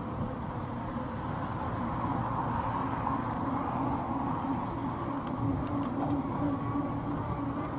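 Steady wind noise on the microphone and tyre noise from a Cannondale Prophet mountain bike rolling along a paved path.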